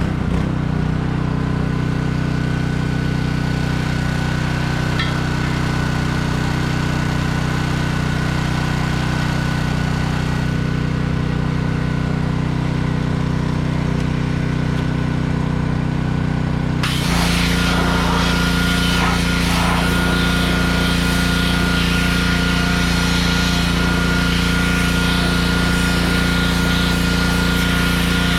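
Pressure washer with a small gas engine running steadily. About 17 seconds in the sound steps up, with more hiss on top.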